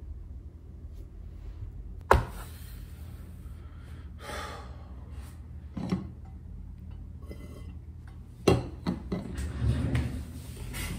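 A person handling things at a desk and shifting in a chair: one sharp knock about two seconds in, then a cluster of knocks and rustling near the end, over a low steady room hum.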